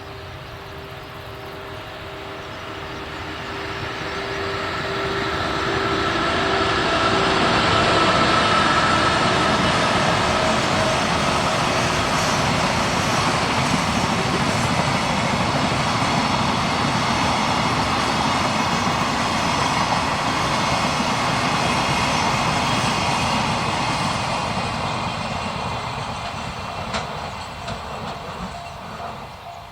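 EF81 electric locomotive hauling a freight train past, growing louder over the first several seconds as it approaches. A long, steady run of wagons rolling by follows, fading away near the end.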